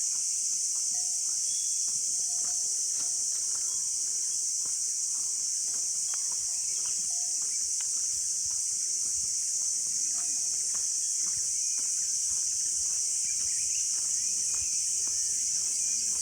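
Steady high-pitched insect chorus of crickets or cicadas, drowning out everything else. Scattered short lower call notes and faint ticks sound beneath it.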